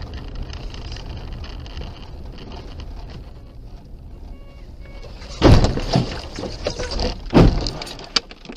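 Steady car cabin rumble while driving on a snowy road, then two loud bangs about five and a half and seven and a half seconds in, with clattering between them: a car colliding with another car.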